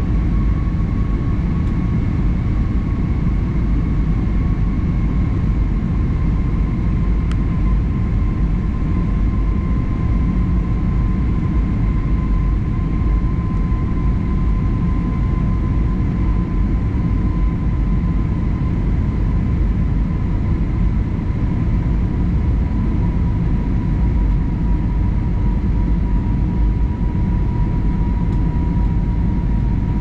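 Cabin noise inside an Airbus A320-family jet airliner in flight: a steady low rumble of engines and airflow, with an engine whine that slowly sinks in pitch.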